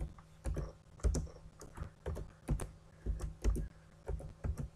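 Computer keyboard typing: a run of about a dozen separate, irregularly spaced keystrokes.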